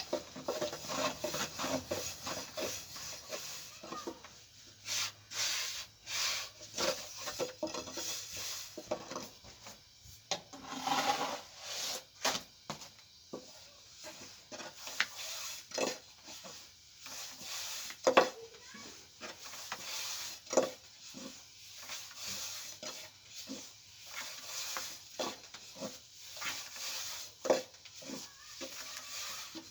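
Irregular scraping and rubbing with scattered sharp knocks, a louder knock about two-thirds of the way in.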